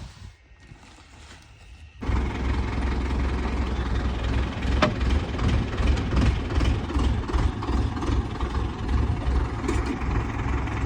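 Indo Farm 3075 tractor's diesel engine running steadily, coming in suddenly about two seconds in after a quieter stretch. A single sharp click sounds about five seconds in.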